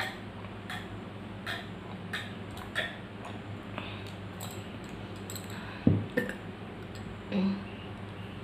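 Someone eating spicy instant noodles: a string of light clicks and taps from utensil and mouth, with a louder low thud about six seconds in and a short low hum about a second and a half later.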